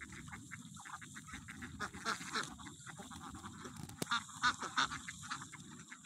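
A large flock of domestic ducks quacking and calling together: a dense chatter of short overlapping calls, louder about four seconds in.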